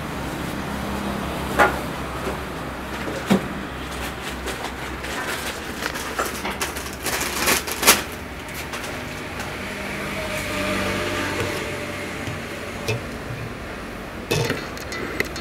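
Workshop ambience: a steady low machine hum, with a few sharp knocks of parts being handled, the loudest about eight seconds in.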